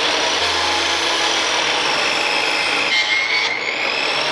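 Table saw running at full speed with a steady high whine as a board is fed toward the blade to be ripped.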